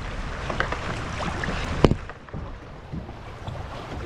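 River water rushing around a kayak, with scattered small knocks and one sharp knock just before the two-second mark; the sound drops off somewhat after it.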